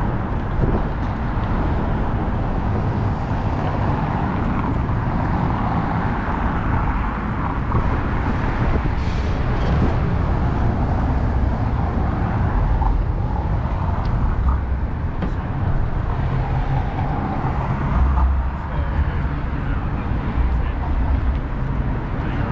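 Steady city road traffic: cars running past on the street, a constant low rumble with no single event standing out.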